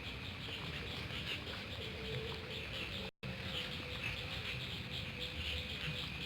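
Nighttime chorus of insects chirping in rapid, overlapping pulses, over a steady low hum from another caller; the sound cuts out for an instant about three seconds in.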